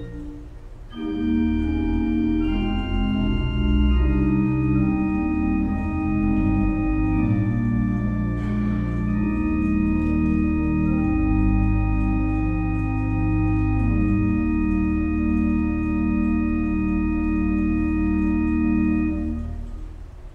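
Organ playing the opening prelude in slow, sustained chords. After a brief break about a second in, held chords change every few seconds, and the final chord releases near the end.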